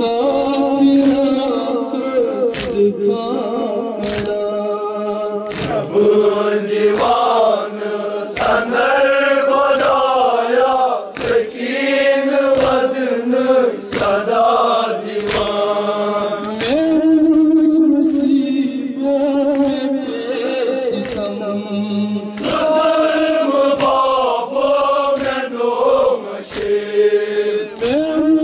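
Men chanting a Muharram mourning lament (nauha), with the steady rhythmic slaps of chest-beating (matam) keeping time with the chant.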